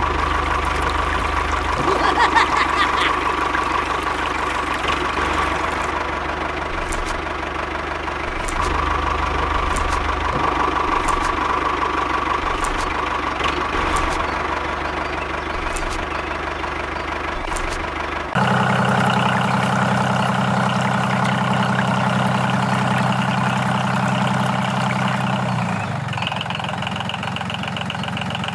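Small diesel engine running steadily at idle. About eighteen seconds in, the sound changes abruptly to a smoother, steadier machine hum.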